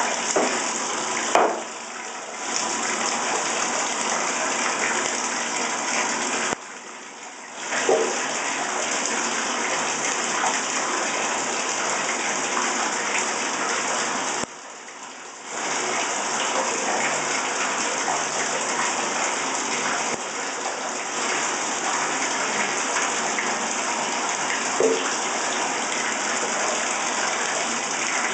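Water running into a bathtub in a steady rush, dropping away for about a second three times.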